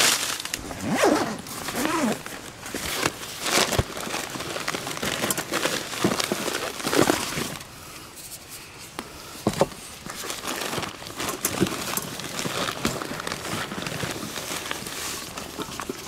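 Hands rummaging in a backpack and handling packed gear: plastic crinkling and rustling, with irregular knocks and clicks.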